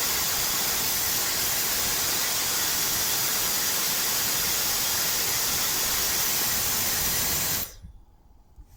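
Electric blower running: a steady rush of air that cuts off suddenly near the end.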